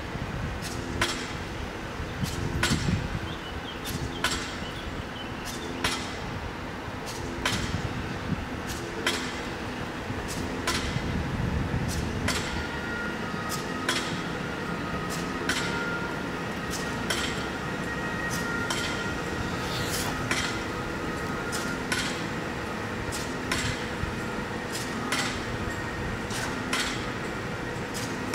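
Red DB Regio electric multiple unit coming in with a low rumble for about the first twelve seconds, then standing with steady high whining tones. Sharp knocks, like hammering from the building site beside the tracks, land every second or two throughout.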